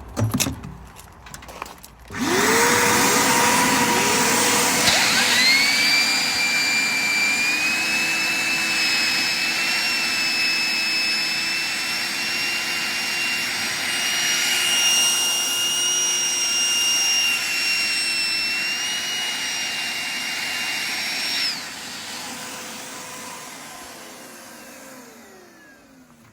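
GVS Industrial 3600 W triple-motor wet and dry gutter vacuum switched on about two seconds in, its motors spinning up one after another with rising whines, then running steadily at full suction for an airflow test. About 21 seconds in it is switched off and winds down, its whine falling away to a stop near the end.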